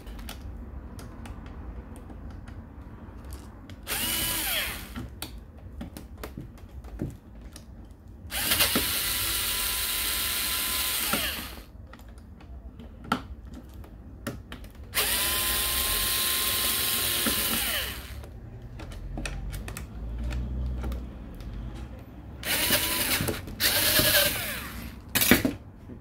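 Black+Decker cordless screwdriver running in four bursts of one to three seconds, each winding up with a rising whine as it backs out the Phillips screws holding the stand's hinge. Small clicks and taps come between the runs.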